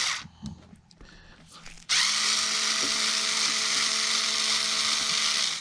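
Small cordless electric screwdriver running, backing a top-cover screw out of a Solex carburetor. It gives a short blip at the start, then runs with a steady whir from about two seconds in for some three and a half seconds and stops near the end.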